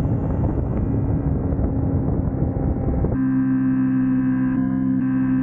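Kawasaki Ninja motorcycle engine running at a steady cruise, a constant even-pitched hum. For about the first three seconds it is half buried under rushing wind on the microphone; then the wind drops and the engine tone stands out clearly.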